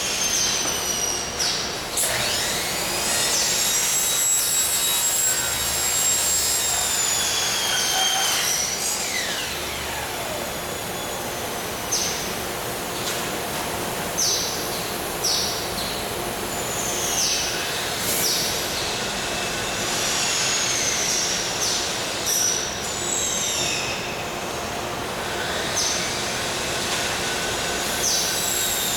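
Steady workshop machinery noise, with high squealing tones that glide up and down and a run of short, sharp squeaks.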